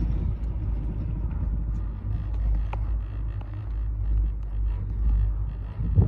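Doppelmayr detachable eight-seat chairlift's haul rope and chair grip rolling through a tower's sheave assembly with a low rumble, mixed with wind on the microphone. A sharp click comes about two and a half seconds in, and a thump near the end.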